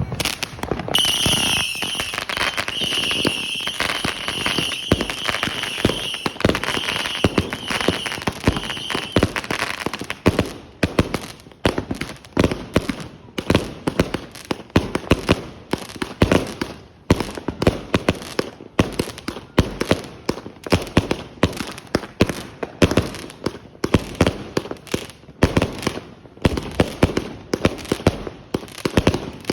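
A 100-shot firework cake firing a rapid run of shots, several a second. A steady high whine runs alongside the shots for the first ten seconds or so, after which the shots sound on their own.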